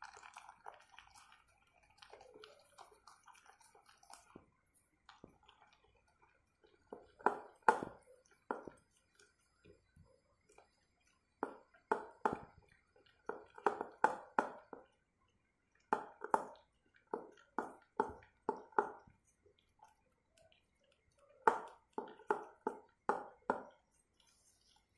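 Labrador eating cooked rice from a stainless steel bowl: wet chewing and smacking in several runs of quick strokes, about four a second, with short pauses between the runs.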